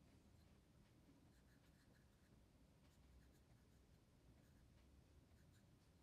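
Pencil drawing on paper: faint scratching in short, irregular strokes.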